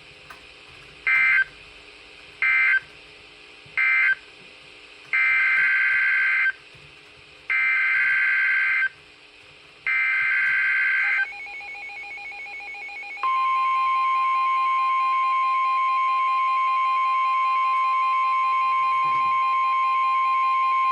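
Emergency Alert System digital data bursts: three short screeching bursts that end the previous alert, then three longer bursts that carry the header of the next one. They are followed by the single steady 1050 Hz NOAA Weather Radio warning alarm tone, which starts about thirteen seconds in and holds for about nine seconds.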